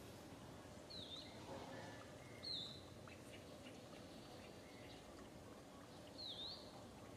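Three short high bird chirps, each a quick dip and rise in pitch, the second one loudest, over faint steady outdoor background hiss.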